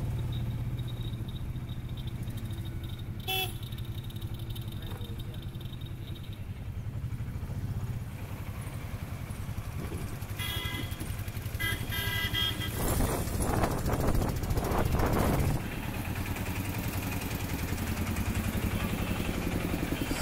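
Auto-rickshaw engine running steadily with a low putter during a ride through town traffic. Short vehicle horn toots sound once about three seconds in and several times between about ten and thirteen seconds.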